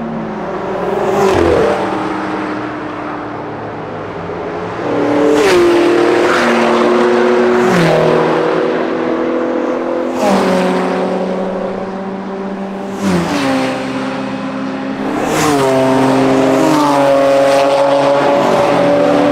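Several track cars accelerating hard down the straight at full throttle, their engines pulling up through the gears; the engine note drops sharply at each of many upshifts, with sharp cracks at several of the shifts.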